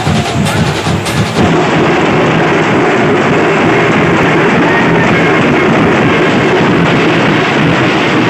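A group of dhol drums beaten hard together with sticks, a loud, dense and steady drumming.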